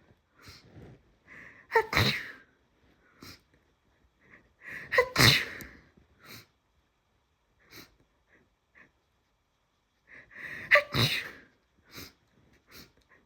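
A person in a sneezing fit, sneezing loudly three times, each sneeze preceded by a building, gasping in-breath, with short sniffs and breaths between the sneezes.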